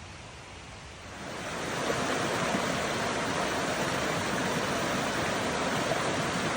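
Waterfall pouring, a steady rush of falling water that grows louder over the first two seconds and then holds.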